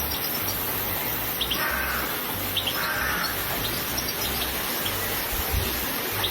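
Small birds chirping in short, high calls scattered over a steady hiss, with low bass notes of background music underneath.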